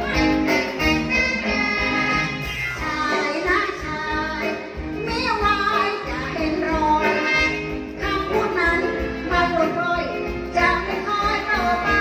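Two women singing a song into microphones, backed by a live band.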